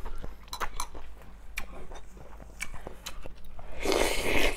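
Thin metal chopsticks clicking now and then against a ceramic bowl, then, about four seconds in, a loud slurp as malatang noodles and soup are sucked up from the bowl.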